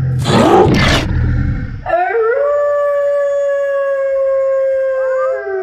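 A werewolf's rough growling roar for about two seconds, then one long wolf-like howl that rises, holds steady and sags slightly. A second howl starts rising just before the end.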